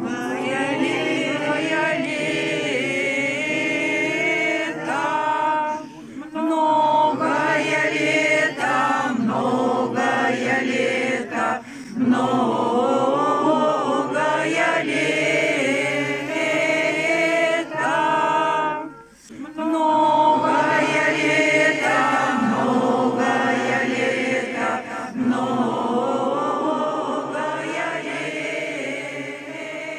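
Unaccompanied Russian Orthodox church choir singing a slow chant in long held phrases, with a few short breaks between phrases.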